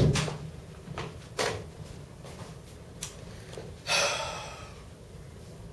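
Light knocks and footfalls on a hard floor as a person moves about, with a louder short rustling thump about four seconds in.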